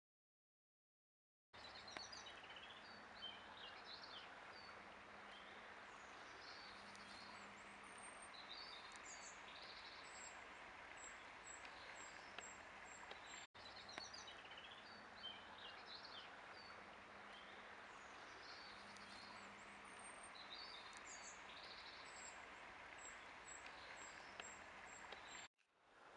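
Faint outdoor ambience: wild birds chirping and calling over a steady background hiss. The sound cuts out completely for the first second and a half and again briefly near the end.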